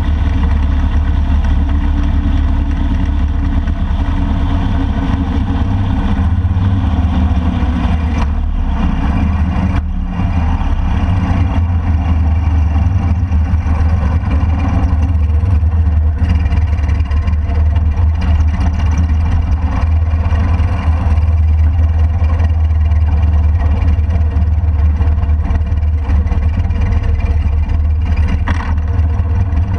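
Motorcycle engine running with a steady deep drone while the bike rides along a street, mixed with wind and road noise, as it slows and turns in to stop.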